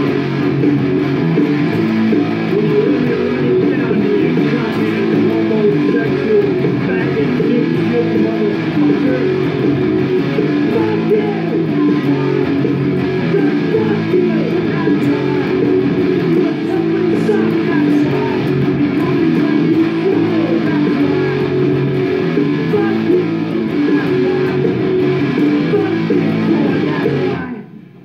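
Electric guitar played continuously through a song, with a brief sharp stop just before the end.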